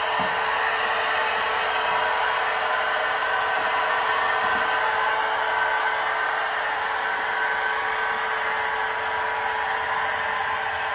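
Märklin H0 model SBB Re 460 electric locomotive running on flex track: a steady whirring whine from its small electric motor and gearing, with the wheels rolling on the rails, growing a little fainter near the end as it moves away.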